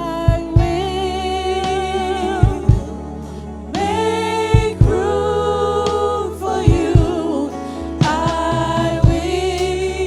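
Gospel worship music: voices holding long sung notes with vibrato over a steady low bass, with low thumps coming in pairs about every two seconds.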